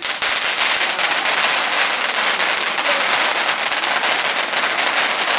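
Rapid-fire firework going off: a dense, unbroken stream of small cracks that starts suddenly and keeps up at an even level.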